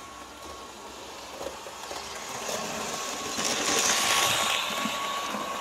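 Märklin H0 model electric locomotive (ÖBB class 1118) with a high-performance drive motor and ball bearings, running light on Märklin M-track: its wheels and motor whir louder as it approaches, are loudest as it passes about four seconds in, then fade. A faint steady whine runs underneath.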